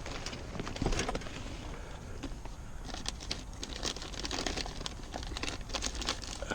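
Hands handling wiring and a plastic wire tie, with scattered clicks and rustling.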